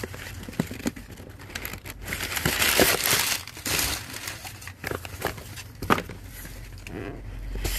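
Rustling and crinkling of packing paper, with small cardboard product boxes sliding and clicking against each other as they are handled inside a shipping carton. The rustle is heaviest about three seconds in, and a few sharp taps follow.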